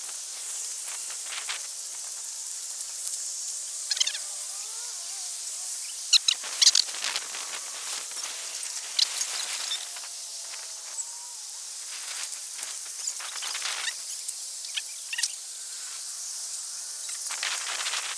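Steady high-pitched insect chorus from tall summer grass, with a scattering of sharp clicks and crunches, the loudest about six to seven seconds in.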